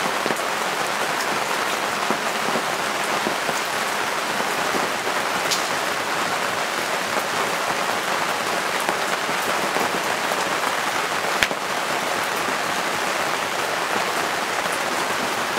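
Lamb skewers sizzling on a charcoal barbecue grill after being brushed with oil: a steady hiss with occasional small pops, one sharper pop about eleven and a half seconds in.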